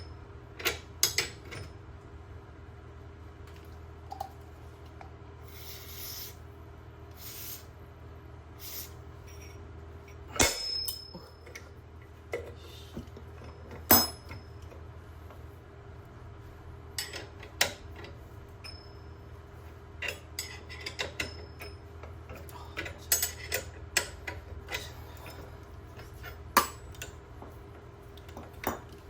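Metal hand tools and small metal parts clinking and knocking in scattered taps, the loudest about ten and fourteen seconds in, over a steady low hum. A few short hissing bursts come around six to seven seconds in.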